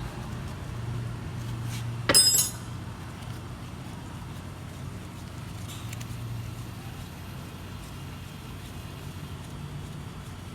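A single sharp metallic clink with a brief high ring about two seconds in, as a steel hand tool or bolt knocks against metal while the brake caliper bolts are being removed. A low steady hum underlies it.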